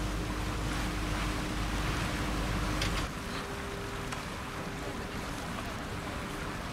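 Steady drone of a sightseeing boat's engine, with wind and water noise from the open deck. About three seconds in, the sound changes abruptly: a little quieter, with less low rumble and the engine's hum sitting higher.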